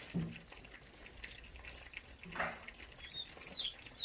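Birds calling in runs of short, falling whistled notes over a steady splashing and dripping of running water, with two short low sounds, one right at the start and one past the middle.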